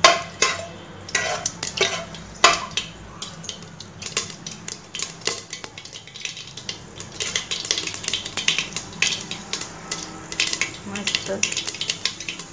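Mustard seeds crackling and popping in hot oil in a pressure cooker, a rapid irregular patter of sharp pops as the tempering splutters. A metal spoon knocks against the pot near the start.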